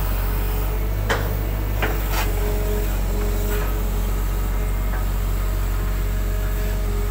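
Hitachi hydraulic excavator's diesel engine running steadily under load as the bucket digs silt out of a ditch. A few sharp knocks come between about one and two seconds in.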